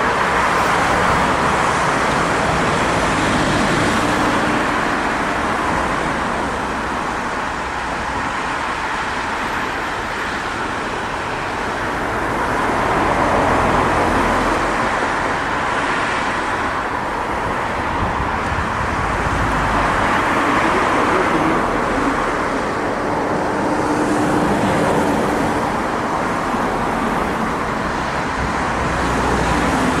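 Steady road traffic: cars passing on a busy street, the noise swelling gently as vehicles go by.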